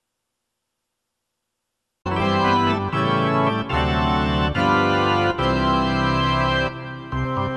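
Silence, then about two seconds in organ music starts, playing held chords that change every second or so.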